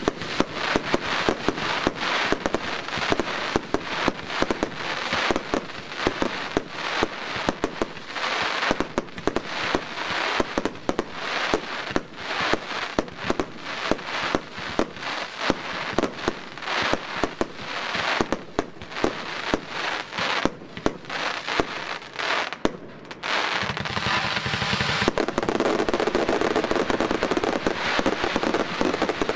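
F2 consumer firework cakes firing in quick succession: a dense run of launch thumps and bangs, with crackling star bursts. About 23 seconds in, the shots merge into a thick, almost continuous crackle that gets louder about two seconds later.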